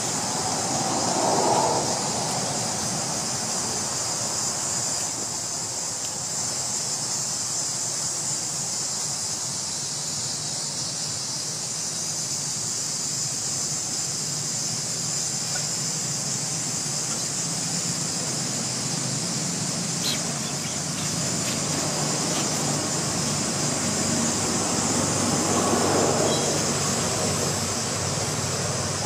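Steady high-pitched drone of an insect chorus, with two brief louder mid-pitched sounds, one about a second in and one near the end.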